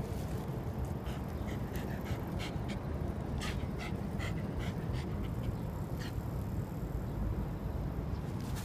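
Shiba Inu panting in a run of short quick breaths, about three a second, that stops about six seconds in, over a steady low rumble.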